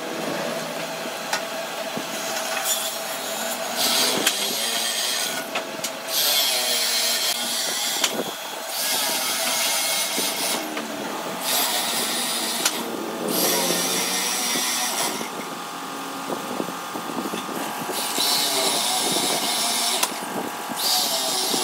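Corded electric hand drill boring holes into a wooden slab, in about seven bursts of a second or two each: the motor whines up and the bit chews into the wood, then eases off between holes.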